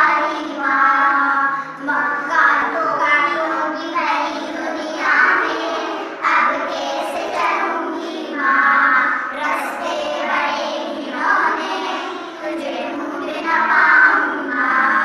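Children singing a song, phrase after phrase, each line held for a second or two.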